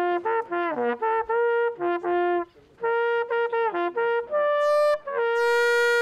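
Small coiled hunting horn blowing a hunting signal: runs of quick notes and short held notes, a brief break about two and a half seconds in, then more notes ending on a long held note.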